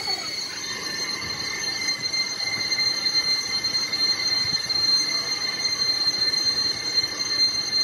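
Factory metalworking machinery running with a steady high-pitched metallic squeal over a noisy clatter.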